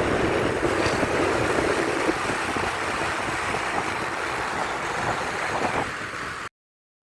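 Steady noise of a moving vehicle on the road, with wind rushing over the microphone; it cuts off suddenly near the end.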